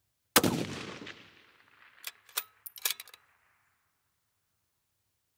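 A single shot from a .308 Winchester bolt-action precision rifle fitted with a muzzle brake, the report dying away over about two seconds. It is followed by a few quick metallic clicks as the bolt is worked to eject the case and chamber the next round.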